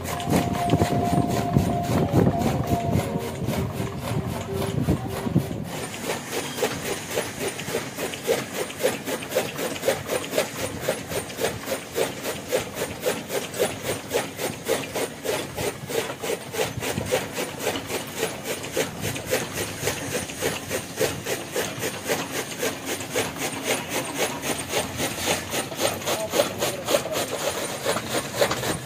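Bull-driven gear toka (chaff cutter) running, its gears and flywheel blades chopping green fodder in a fast, even rhythm of scraping clatter. The first few seconds hold a louder, lower rumble with a brief steady tone before the rhythm settles in.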